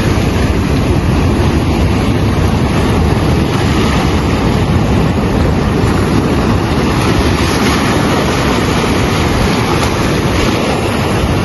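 Waves breaking and washing up a sandy shore in a rough sea, with strong wind buffeting the microphone in a steady rumbling roar.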